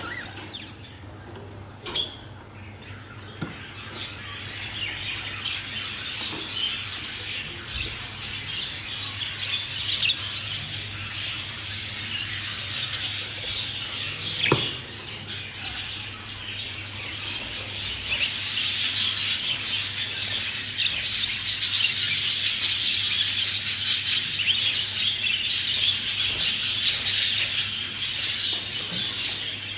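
Budgerigars chattering and chirping, a continuous mix of many short calls, growing louder and busier about two-thirds of the way in.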